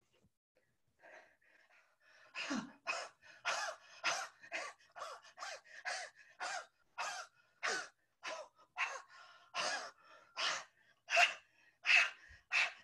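A woman's voice making a rapid run of short, breathy, wordless vocal bursts like gasps or huffs, about two a second, starting about two seconds in and growing louder near the end: punctuation marks voiced as sounds in a poetry performance.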